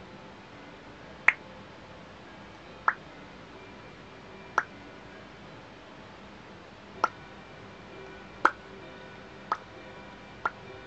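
Seven sharp, separate clicks at irregular gaps of one to two and a half seconds, over a faint steady hum.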